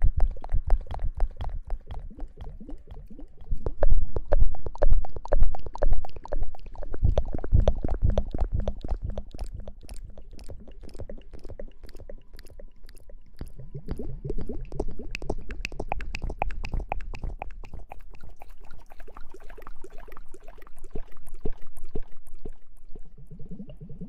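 Close-miked ASMR trigger sounds: hands and a clear handheld wand worked right at the microphone, giving dense crackling clicks. Heavy low thumps come in from about four to nine seconds in.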